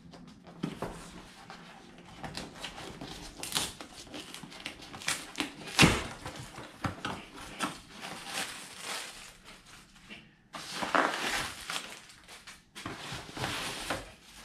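Cardboard shipping box being opened by hand: tearing and rustling of cardboard with scattered knocks and taps, the loudest about six seconds in. Bubble wrap rustles near the end as the contents are pulled out.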